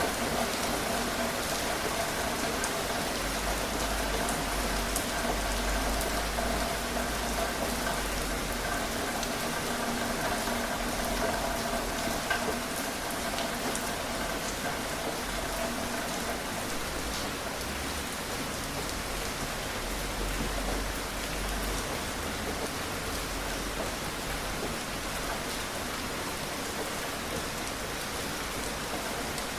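Steady rain falling, with individual drops ticking through the hiss. A low rumble comes and goes underneath, and a faint hum fades out about halfway through.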